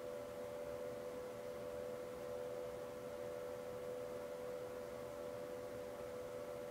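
Steady hum made of two close, unchanging tones with fainter overtones above them.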